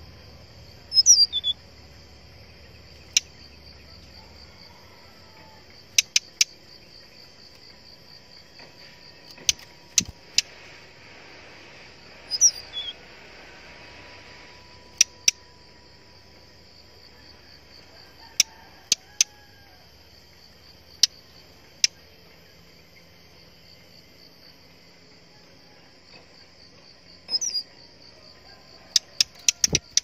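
Brown-chested jungle flycatcher calling: sharp single tick notes scattered throughout and three brief calls falling in pitch, about a second in, midway and near the end. Under them runs a steady pulsing insect drone.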